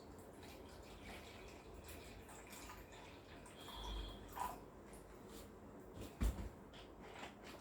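Water being poured into the water chamber of an electric steam vaporizer, a faint trickling and dripping, with a few handling knocks, the loudest about six seconds in.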